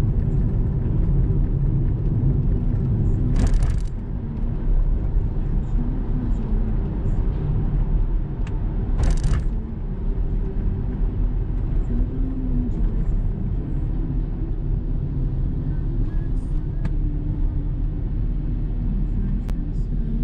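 Steady low rumble of a car driving, with engine and road noise, behind a container truck. Two short hisses cut through it, about three and a half seconds in and again about nine seconds in.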